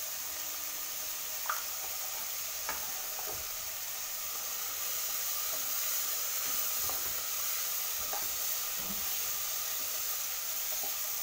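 Chopped vegetables sizzling steadily in hot oil in a nonstick pot while a wooden spoon stirs them, with a few light taps of the spoon against the pot.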